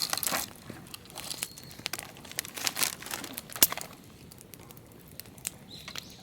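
Rustling, crinkling and sharp crackles of kindling and firewood being handled and laid into a campfire, with a loud snap a little after three and a half seconds. After about four seconds only a few scattered crackles remain.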